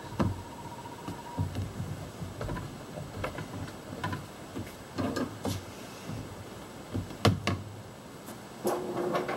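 Scattered clicks, knocks and rattles of hands and a screwdriver working on plastic intake parts in a car's engine bay, with one sharp click about seven seconds in.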